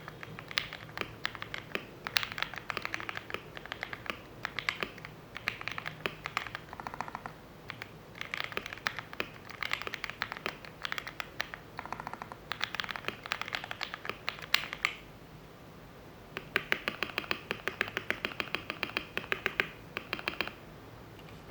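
Typing on an E-Yooso Z11 mechanical keyboard with lubed Jixian Matcha Ice linear switches and a foam-modded case: rapid runs of key clicks in bursts, with brief pauses between them.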